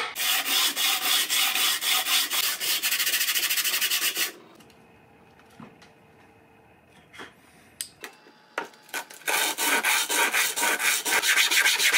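A small flat piece of handle material is rubbed back and forth by hand on a sheet of sandpaper laid flat on a bench, in quick rasping strokes. The strokes stop a little after four seconds, a few light clicks follow, and a second run of strokes starts about nine seconds in.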